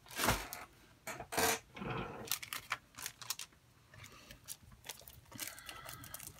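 Rustling and a few sharp crackles of a plastic sticker pack being picked up off a paper layout and handled, with a softer crinkle near the end.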